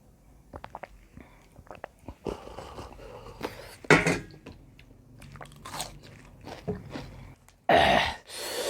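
Close-up eating sounds: chewing and crunching with small wet mouth clicks, a sharp louder crunch about four seconds in and a loud noisy burst near the end.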